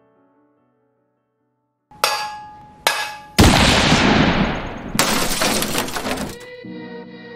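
A crash sound effect after a short silence: two sharp hits, then a third, loudest hit that smashes and breaks up, ringing away over about three seconds, with one more hit partway through. A new piece of music with a steady pulse starts near the end.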